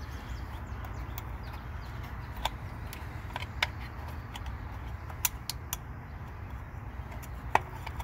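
Scattered light clicks and taps of a plastic cartridge-type oil filter cap being handled and fitted against its housing, over a steady low rumble. The sharpest click comes near the end.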